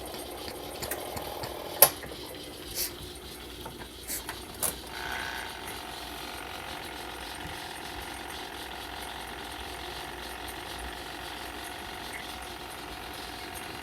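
Small portable twin-tub washing machine running with a steady hum, with a few sharp plastic clicks and knocks in the first five seconds, the loudest about two seconds in.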